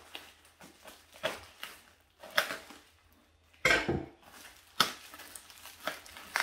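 A knife slitting a taped brown-paper parcel and the wrapping being pulled open: irregular rustling and crackling of paper and tape, with a louder knock from handling the parcel about halfway through.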